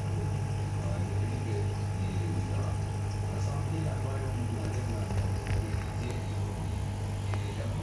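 Aquarium equipment humming steadily at a low pitch, with a few faint clicks in the second half.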